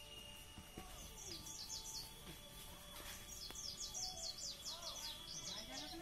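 A small bird chirping in two quick runs of short, high, falling notes, the second run longer, over a faint steady high-pitched tone.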